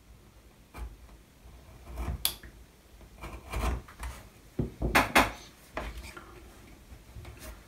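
Small wooden parts of a model ship's frame knocking and rubbing together as they are handled and pressed into place by hand, with a few sharp clicks and knocks, the loudest about five seconds in.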